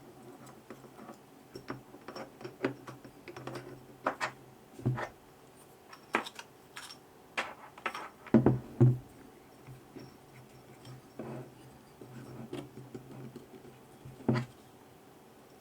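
Hands working on a Xiaomi M365 electric scooter's dashboard parts: an irregular run of small clicks, taps and knocks, with two louder knocks a little over halfway through.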